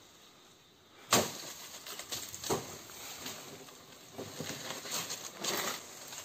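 Dry palm fronds crackling and rustling in irregular bursts, starting with a sharp crack about a second in, as a climber moves among them at the crown of a fan palm.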